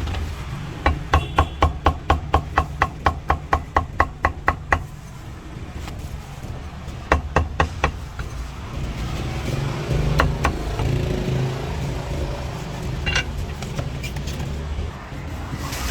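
Cleaver chopping roast meat on a chopping block: a quick even run of about sixteen chops, about four a second, then a short burst of four more a couple of seconds later, over a steady low rumble.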